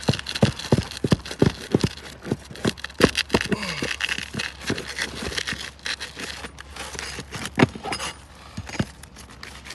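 Brittle asphalt three-tab roof shingles being pried up from their nails with a hand tool: a dense run of sharp cracks, snaps and scrapes as the old shingles tear.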